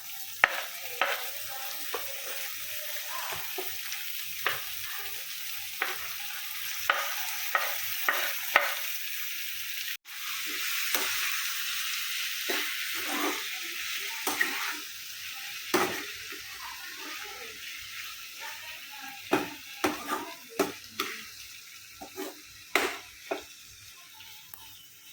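Chopped onion and tomato sizzling in hot oil in a pan, stirred with a spatula that scrapes and knocks against the pan many times. The sizzle briefly drops out about ten seconds in and comes back louder.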